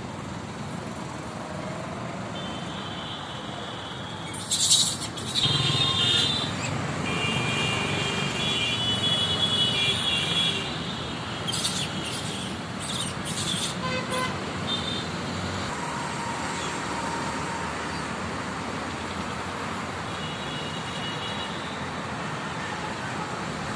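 Steady road traffic noise, with high thin tones coming and going in the first half and a few sharp clicks or knocks.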